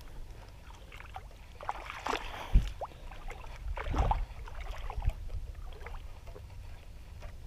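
Wind rumbling on the microphone of a body-worn camera, with a few soft knocks and bumps about two and a half, four and five seconds in.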